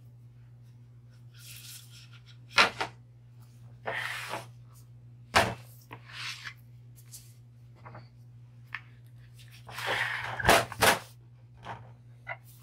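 Wooden soap loaf mold being taken apart by hand: several sharp knocks of the plywood lid and box against the steel table, with scraping and rubbing as the panels slide off the silicone liner, over a steady low hum.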